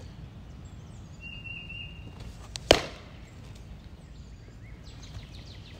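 A fastpitch softball fastball, clocked at 54 mph, smacks into a catcher's mitt once, a single sharp pop about two and a half seconds in.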